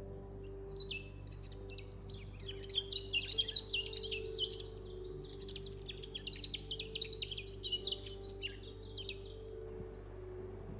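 Small birds chirping and trilling in quick, high runs, busiest from about two seconds in until near the end, over a low, steady synth drone of background music.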